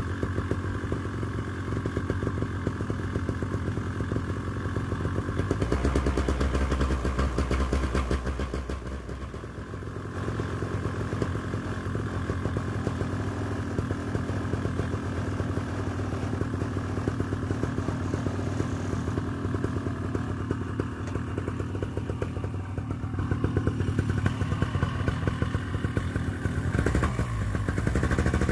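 A Vittorazi Moster 185 single-cylinder two-stroke paramotor engine runs steadily at warm-up speed, held around 3000 rpm after a cold start. It gets louder for a few seconds about six seconds in and dips briefly near ten seconds.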